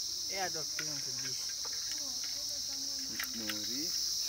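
A steady, high-pitched chorus of insects shrilling without a break, with a few low voices talking quietly over it.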